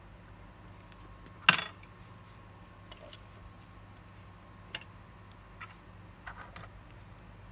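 Small metallic clicks of steel tweezers and watch parts being handled, with one sharp clack and a brief ring about a second and a half in, then a few faint ticks and taps.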